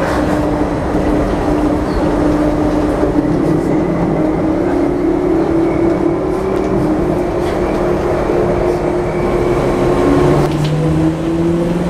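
Danhai light rail tram running along its track, heard from inside the car: a steady rumble of wheels on rail with a motor whine. About ten seconds in, the sound changes to a lower whine that climbs in pitch.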